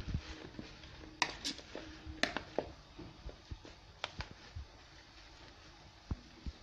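A hand mixing a moist chicken, tuna and vermicelli filling in a bowl: soft squishing with scattered light clicks and taps against the bowl, and a couple of low thuds near the end.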